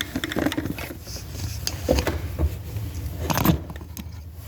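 Light metallic clicks and handling noises of hands and a tool working on a distributor while its pickup air gap is being adjusted, with one louder click about three and a half seconds in, over a low steady hum.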